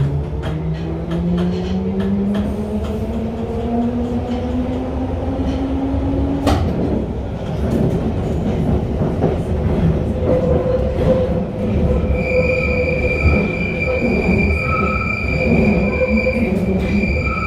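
London Underground 1972 Mk 2 stock Tube train pulling away, heard from inside the carriage. The traction motor whine rises steadily in pitch for about six seconds until a click. Then the wheels rumble along the tunnel, and from about twelve seconds in a steady high-pitched wheel squeal sets in.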